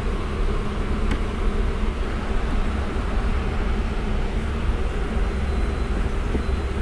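Honeybees buzzing in a steady hum around an open hive, over a steady low rumble.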